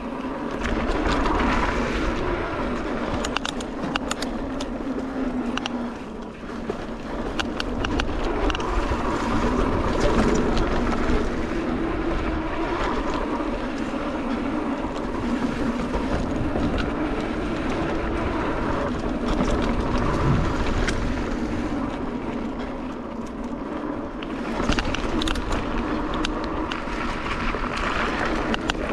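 Mountain bike descending rough dirt singletrack, heard from a rider-mounted GoPro. Steady wind rush and rumble on the microphone, with the tyres crunching over dirt and rock. The bike rattles and clatters in quick clicks, thickest near the start and again near the end.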